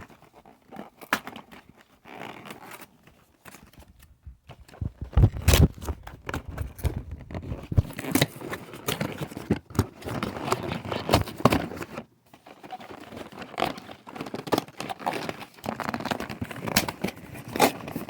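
Cardboard headset box being torn open and handled: irregular tearing, scraping and crinkling of card and packaging, with a short lull about four seconds in.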